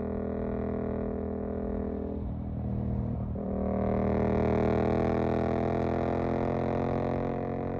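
Suzuki GSX-8S parallel-twin engine through a Jeskap EVO aftermarket exhaust, heard while riding. It runs steadily at first, falters briefly about two seconds in, then pulls louder with its pitch slowly rising, and eases back just before the end.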